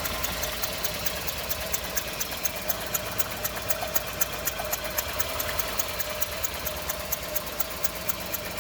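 Renault Sandero engine idling very low and rough with a pulsing beat, misfiring badly and shaking.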